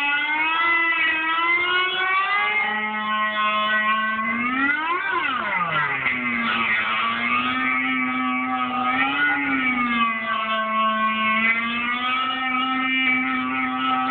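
Fender electric guitar sustained by an EBow, sounding long held notes without any picked attack, with slow wavers in pitch. About five seconds in, the pitch slides up and then back down.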